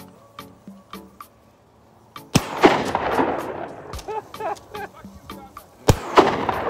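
Two shotgun shots fired at passing ducks, about three and a half seconds apart, each loud report trailing off in a long echo. Background music with a steady beat plays underneath.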